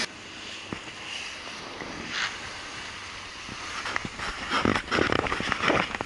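Rigid inflatable boat under way at speed: rushing water and wind on the microphone. From about four seconds in there is a rapid flurry of sharp slaps and knocks.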